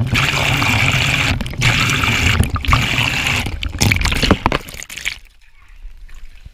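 Shower water spraying straight onto the camera's waterproof housing, a loud steady rush of water with a couple of brief breaks, stopping about five seconds in.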